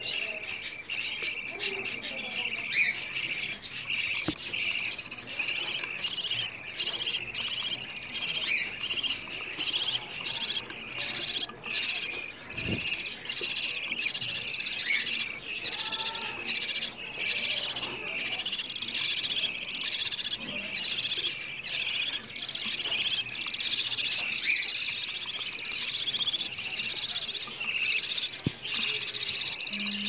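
Budgerigars chattering and chirping nonstop, a dense run of quick high chirps.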